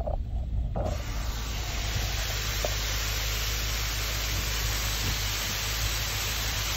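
Waterfall cascading down a rock face: a steady, even rush of falling water. For the first second a car's low rumble is heard, cutting off suddenly.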